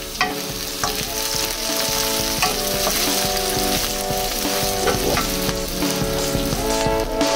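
Diced peppers and onions sizzling in hot oil in a non-stick wok, stirred with a wooden spatula that scrapes and now and then knocks against the pan.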